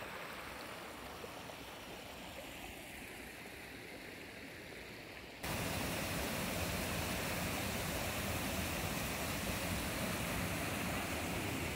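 Shallow stream rushing and splashing over rock ledges in small rapids, a steady water noise that becomes suddenly louder about five and a half seconds in.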